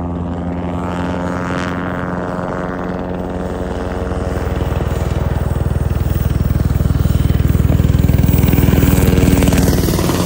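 Black Hawk helicopter flying low past: the beat of its main rotor blades and a steady whine grow louder from about four seconds in and are loudest near the end as it passes close overhead.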